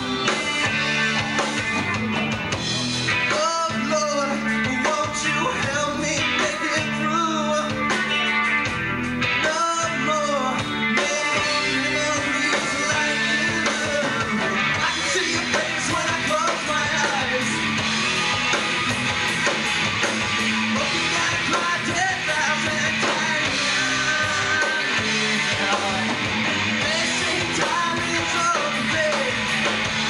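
Live rock band playing: a man singing lead over electric guitars, bass guitar and drums.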